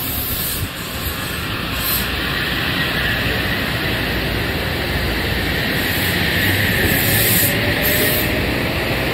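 Electric multiple unit train (Metro-North M8 type) rolling slowly into the platform at close range: a steady rush of wheels on rail that grows a little louder, with a faint rising whine as it slows to a stop.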